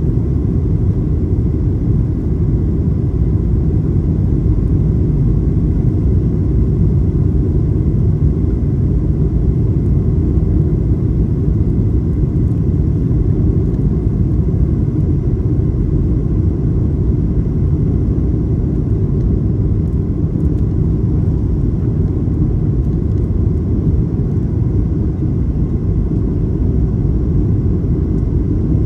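Steady low rumble of a Boeing 737-800's CFM56 engines and airflow, heard inside the passenger cabin on final approach with the landing gear and flaps extended.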